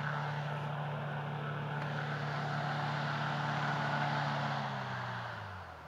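Hovercraft engine and propeller running steadily with a rushing of air and blown snow, as the craft works to move off after getting stuck on the ice. Near the end the engine pitch falls and the sound fades.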